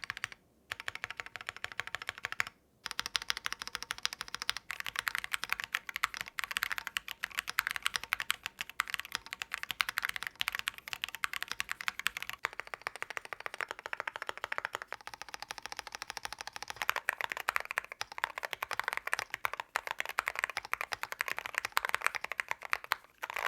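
Fast typing on a Keychron Q10 Pro gasket-mounted mechanical keyboard, a before-and-after test of a tape mod. The typing sound changes character about halfway through, from the stock sound with a little metallic ping to the deeper sound after the mod.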